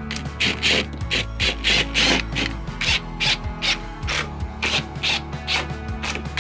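Ryobi cordless driver driving screws into a plywood box, heard as a quick series of short pulses, about four a second, with background music underneath.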